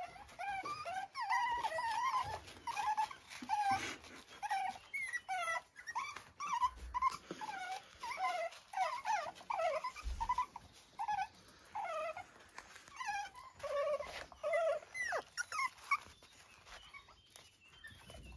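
Young puppies play-fighting, giving a rapid string of short, high-pitched growls and yips that die away near the end.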